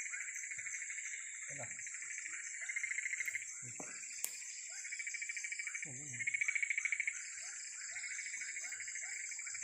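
Evening chorus of insects and frogs: a steady, high pulsing insect trill that swells louder twice, about three and six seconds in, over many short, repeated frog calls.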